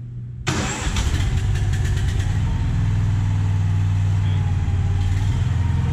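Small gasoline pony motor on a lowboy trailer's gooseneck, the engine that drives the trailer's hydraulics, key-started with the choke pulled out: it cranks for about two seconds, catches, and runs steadily.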